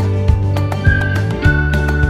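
Background music: a high lead melody of held notes over a steady bass line and a beat of about two hits a second.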